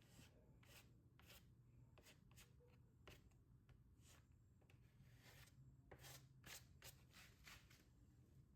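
Faint, irregular scraping strokes of a putty spreader working 1K body filler over a scuffed spot on a motorcycle body panel to level it.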